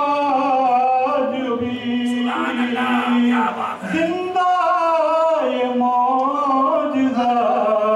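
Unaccompanied male singing of a naat, an Urdu devotional song: a long drawn-out melodic phrase whose pitch slides and wavers.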